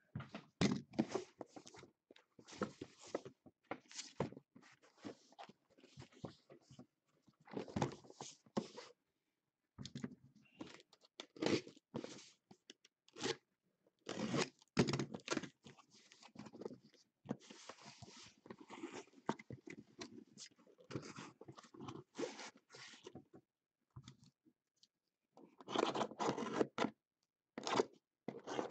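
Packing tape being torn off a cardboard card case and the cardboard box and flaps being handled: irregular crackling, tearing and scraping in bursts, with a couple of short pauses.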